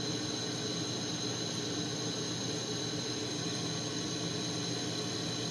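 Propane-oxygen lampworking torch burning steadily: an even rushing noise with a faint steady high tone under it.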